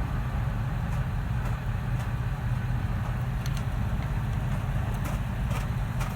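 Steady low mechanical drone with a few faint clicks in the second half, from a pry tool levering a brake caliper's pistons back.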